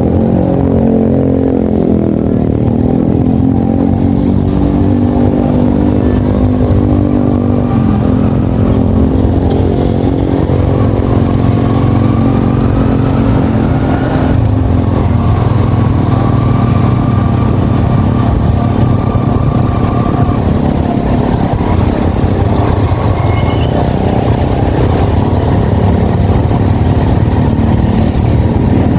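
Yamaha XSR155's single-cylinder engine running under way, heard from the bike. The engine pitch dips and climbs again in the first few seconds, holds steady for about ten seconds, then fades after about 15 s under wind and road noise.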